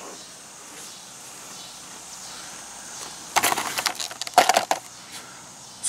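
Handling noise: a short cluster of crackles and clicks about three and a half seconds in, lasting a little over a second, after a few seconds of faint steady background hiss.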